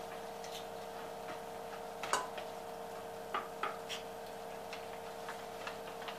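A cooking spoon tapping and scraping against a frying pan as diced zucchini is stirred, in light irregular clicks, the loudest about two seconds in. A steady hum runs underneath.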